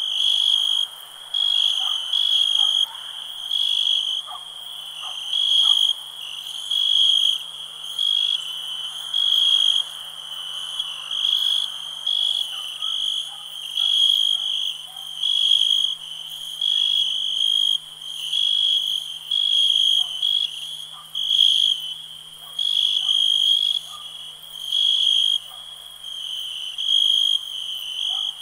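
Crickets chirping at night: a high, pure chirp repeated in a steady rhythm, about one chirp a second, over a faint background haze.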